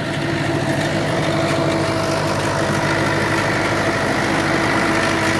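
HMT 5911 tractor's diesel engine running steadily under load, driving a rotary super seeder through paddy stubble.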